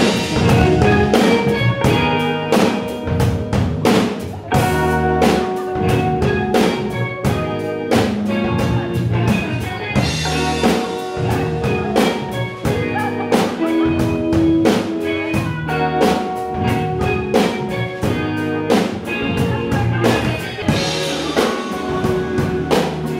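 A rock band playing live on amplified instruments: a drum kit keeps a steady beat under electric guitars.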